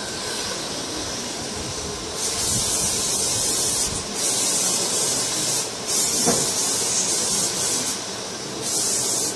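Hair setting spray sprayed onto a sculpted hairstyle in several long hissing bursts of one to two seconds each, starting about two seconds in. Before the bursts there is a steady even noise of air.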